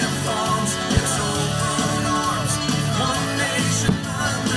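A rock song with guitar and a singing voice, with two short deep thumps, about a second in and near the end.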